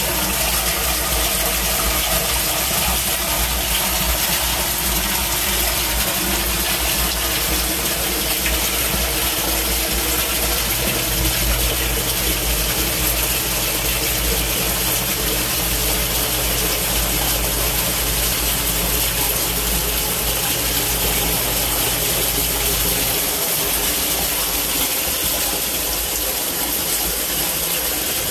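Torrential rain pouring down with storm water rushing into a yard drainage system, a loud, steady noise with a low rumble beneath. A low steady hum comes in about eleven seconds in and cuts off about twelve seconds later.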